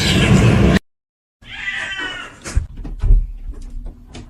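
A loud stretch of mixed noise cuts off abruptly under a second in. After a short silence, a cat meows once, among a few knocks and a dull thump.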